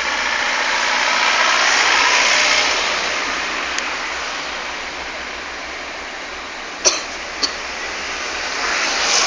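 Road traffic going past: a steady rush of tyre and engine noise that swells as vehicles pass, about two seconds in and again near the end. Two sharp clicks come about seven seconds in.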